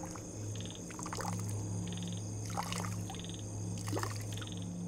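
Liquid trickling from a small container into pond water, with a few faint drips and splashes.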